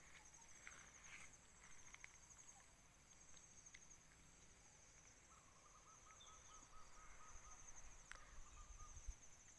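Near silence with a faint, steady high-pitched chirring of crickets, and a rapid lower trill for about three seconds just past the middle.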